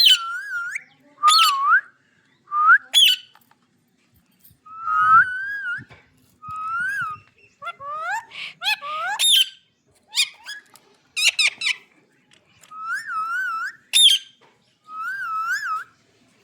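Green parrot whistling: a string of short, wavering whistles, each rising and falling, separated by brief pauses, with sharp high squeaks mixed in.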